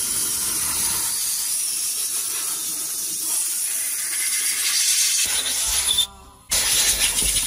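Steady spraying hiss from a hand-held nozzle over a wet engine bay, dropping out briefly about six seconds in, then resuming.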